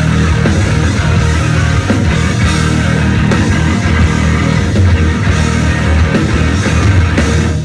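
Live rock band playing loud, heavy music; the song stops abruptly at the very end.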